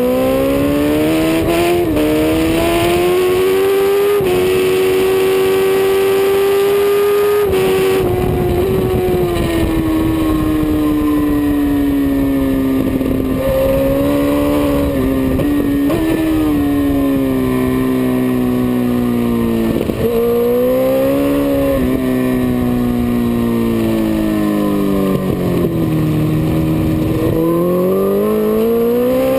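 Dyno-tuned Suzuki GSX-R1000 inline-four sportbike engine at racing speed, heard from the bike itself. Its pitch climbs through two quick upshifts in the first few seconds, holds high, then falls away about eight seconds in. It rises and falls with the throttle through the rest of the lap and climbs hard again near the end, over steady rushing wind noise.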